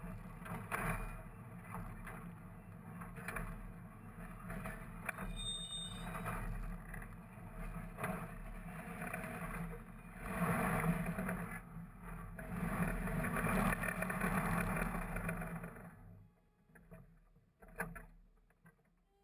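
Victorian electric tramcar moving slowly along the rails: a steady low hum and rumble with scattered knocks. It fades out near the end, followed by a single click.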